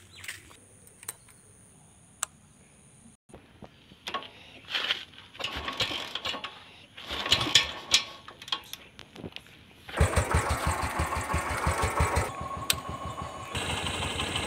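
Royal Enfield Bullet 500's single-cylinder four-stroke engine being kick-started cold. Several kicks turn it over, and about ten seconds in it catches and runs with a rapid, steady beat of thumps.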